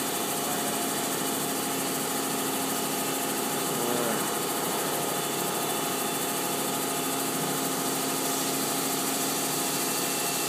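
Boring mill finishing a 130 mm bore, its spindle turning a Sandvik damped boring bar with a TCMT cermet insert at about 800 RPM: a steady machine hum with several steady whining tones.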